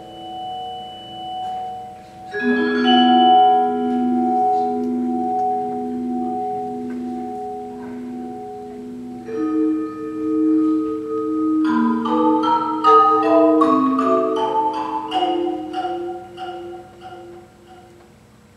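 Music: held pitched chords with a slow, even pulse, then a flurry of quick struck notes about two-thirds of the way through, dying away near the end.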